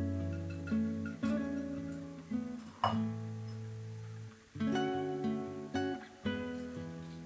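Background music of plucked acoustic guitar, chords struck and left to ring, with a brief sharp click about three seconds in.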